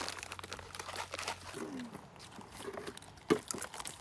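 Crinkling, crackling handling noise with many small clicks, and one sharper, louder click about three and a third seconds in.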